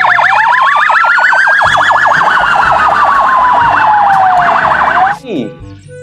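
Loud police car siren: a fast warbling yelp with a slower wail layered over it, the wail rising for about two seconds and falling for about three. The siren cuts off about five seconds in.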